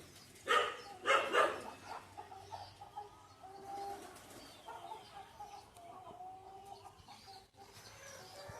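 Poultry in a pen calling: two short loud calls about half a second and a second in, then softer, low, drawn-out calls.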